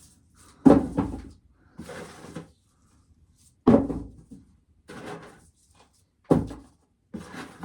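Ear corn being shelled: three sharp knocks about three seconds apart, each followed a second later by a softer, brief rasping scrape.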